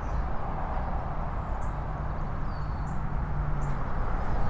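Steady outdoor background noise with a faint low hum through the middle, and a few short, high bird chirps.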